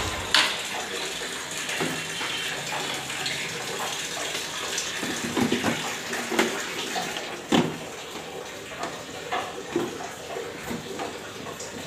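Motorcycle body panels being handled and fitted: scattered plastic clicks and knocks over an even hiss, with the idling engine cutting off right at the start.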